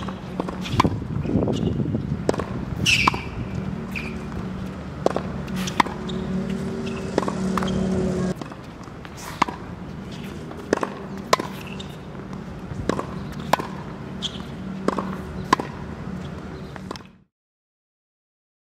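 Tennis ball struck by a racket and bouncing on a hard court during groundstroke practice: sharp pops about every half second to a second, over a steady low hum. The sound cuts out suddenly near the end.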